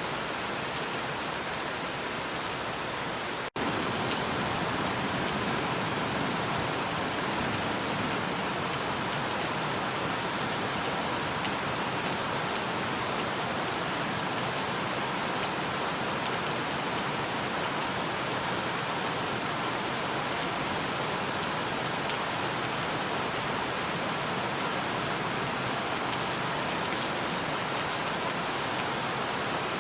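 Steady rain falling, an even hiss of many drops. About three and a half seconds in it cuts out for a split second and comes back a little louder, like a splice in the track.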